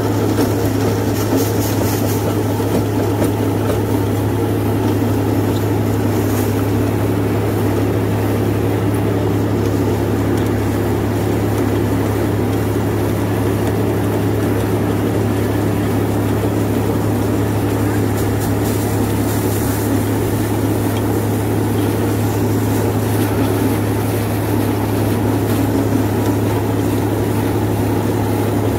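John Deere 5310 tractor's three-cylinder diesel engine running steadily under load, driving a PTO rotavator through banana residue; a loud, even drone with the churning of the rotor blades in the soil.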